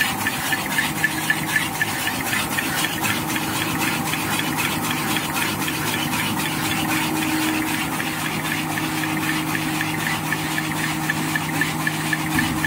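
XY-BT-288 three-lane V-fold hand towel folding machine running at speed: a steady hum under a fast, even mechanical clatter.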